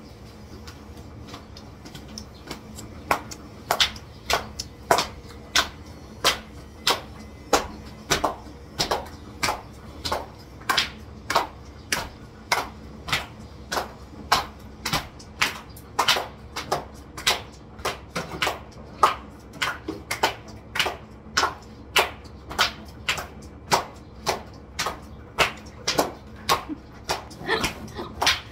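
A steady train of sharp clicks, about two a second, starting a few seconds in.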